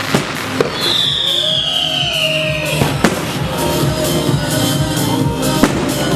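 Aerial fireworks going off with several sharp bangs and a high whistle that falls in pitch about a second in, over loud background music.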